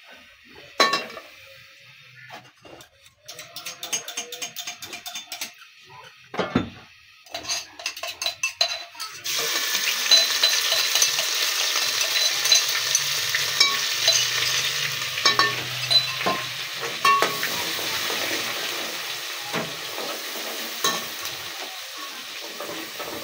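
Metal utensils clink and knock against a pot. About nine seconds in, a loud, steady sizzle starts: masala frying in hot oil in a large aluminium pot, with a metal slotted spoon scraping and tapping the pot as it is stirred.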